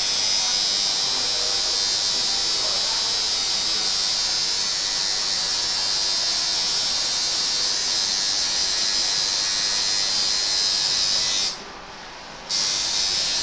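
Electric tattoo machine buzzing steadily as the needle works into skin. It stops for about a second near the end, then starts again.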